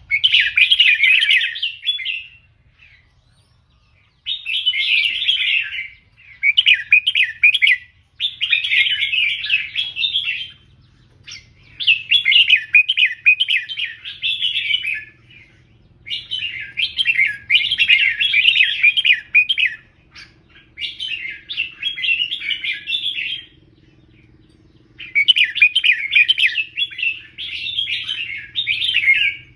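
A caged red-whiskered bulbul singing loud, fast warbled phrases in the 'double-three' (เบิ้ล 3) pattern of a teacher-bird recording, about eight phrases of one to four seconds each with short pauses between them.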